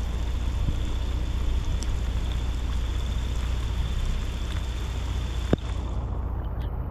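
Rain pattering on a car, heard from inside the cabin over a steady low rumble of the vehicle, with one sharp click about five and a half seconds in.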